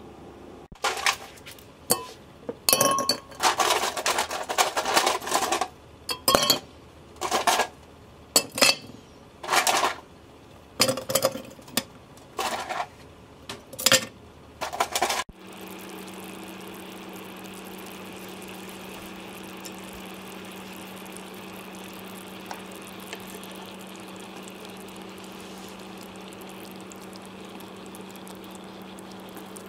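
Ice cubes clinking and knocking against a glass measuring jug in a quick, irregular series of sharp clinks. About halfway through this stops suddenly and gives way to a pan of sukiyaki simmering: a steady hiss with a low hum.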